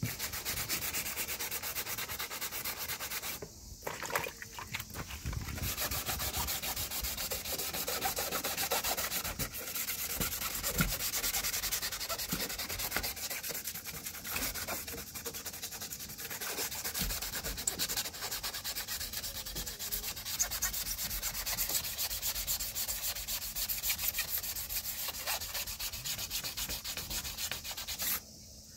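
Hand wet-sanding of a scratched car body panel with fine 2000-grit waterproof sandpaper on a sanding block, levelling the scrape so no step is left before painting. The paper makes a steady, rapid back-and-forth rubbing hiss, with a short pause about three and a half seconds in. It stops abruptly just before the end.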